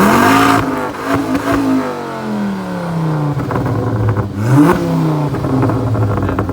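Ford Focus ST engine blipped twice from idle, each rev climbing quickly and dropping slowly back to idle, with a few sharp cracks as it comes off the throttle. The exhaust is loud, not standard.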